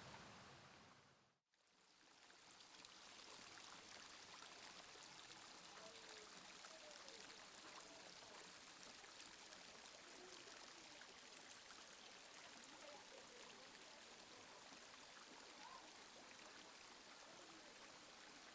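Faint, steady rush of a mountain stream, which dips to silence about a second and a half in and then fades back up.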